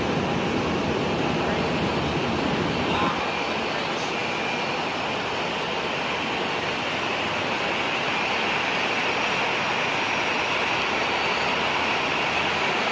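Jet airliner engine noise: a steady rushing sound, with a higher hiss that grows a little stronger about five seconds in.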